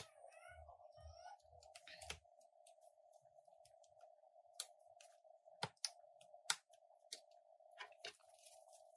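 Near silence with faint, scattered small clicks, about nine of them, as the NFC shield and small parts are fitted back onto the phone's internals, over a steady faint hum.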